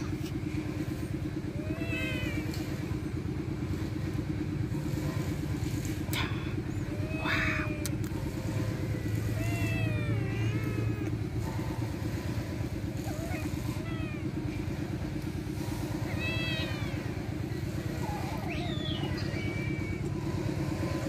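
Kittens mewing, a string of short high calls that rise and fall in pitch, coming again and again, over a steady low rumble.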